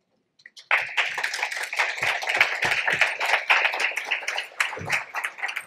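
Audience applauding, starting suddenly about a second in and thinning out toward the end.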